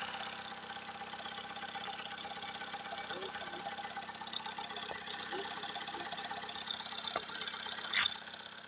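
Car engine idling with a rapid knock, a knock that sets in only once the engine has warmed up. A short sharp click near the end.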